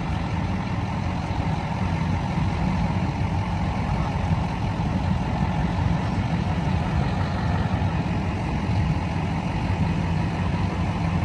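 Heavy diesel engine idling: a steady, even low drone.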